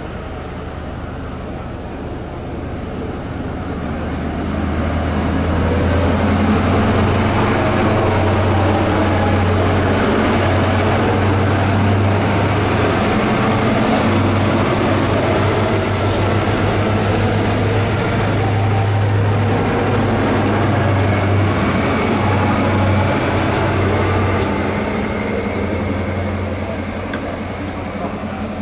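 Great Western Railway HST with Class 43 power cars passing, its diesel engine note and rail rumble building over the first few seconds, holding steady, then easing near the end. A thin high wheel squeal joins in the second half.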